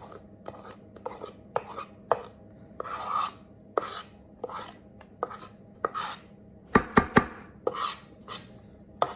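A spoon scraping and knocking against a bowl while scooping thick cake batter: a run of short scrapes and taps, roughly one or two a second, with the sharpest knocks about seven seconds in.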